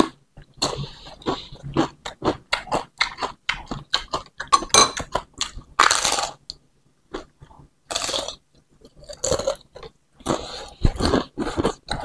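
A crispy fried cracker being bitten and chewed up close: many quick, sharp crunches, with a few longer, louder chewing sounds among them.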